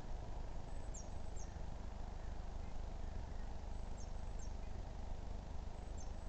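A small bird calling, each call two short, very high falling chirps, repeated about every three seconds, over a steady low hiss of outdoor background noise.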